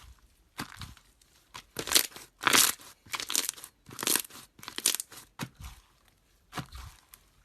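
Slime being squeezed and poked by hand: a string of short, crisp squishing bursts, about two a second, some much louder than others.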